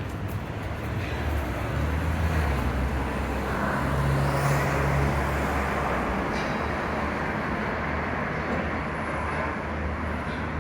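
Street traffic: a motor vehicle's engine hums close by, loudest a few seconds in, over steady road noise.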